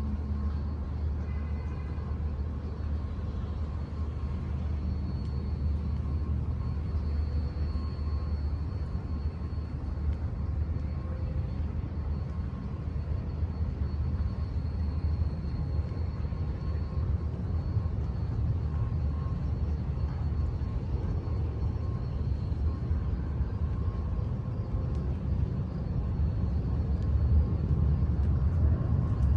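Steady low rumble of city ambience, growing a little louder near the end, with faint steady hums above it.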